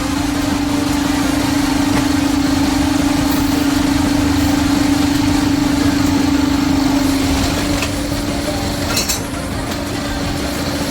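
A motor running with a steady hum that weakens about seven and a half seconds in, with a brief sharp click about nine seconds in.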